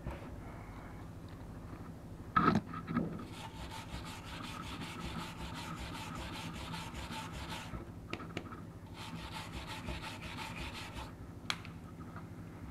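A hand scrubbing weld-cleaning acid into a welded stainless-steel seam on a truck catalytic converter shell with a cloth and small brush: quick, even back-and-forth rubbing strokes in two runs, stopping briefly around the middle. A brief louder knock comes a couple of seconds in, before the scrubbing starts.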